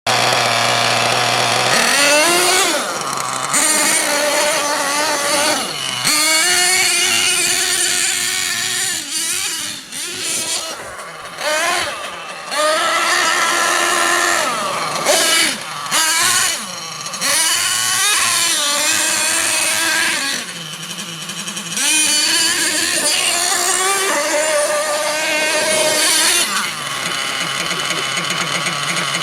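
Small nitro engine of a radio-controlled MTA4 Sledgehammer truck revving hard, its high-pitched whine rising and falling over and over as the throttle is opened and closed, with brief drops in level between bursts.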